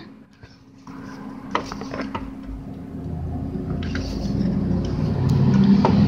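Scattered light plastic clicks and rubbing as a DDR4 RAM stick is worked toward a motherboard DIMM slot, over a faint steady hum. A low rumble of handling noise builds in the second half.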